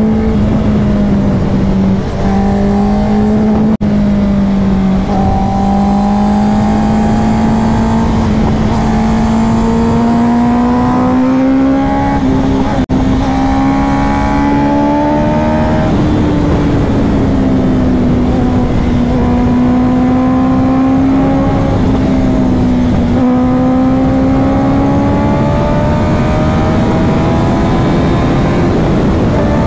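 Honda CBR650F's inline-four engine running at highway speed, its pitch slowly rising and falling with the throttle, over a steady rush of wind.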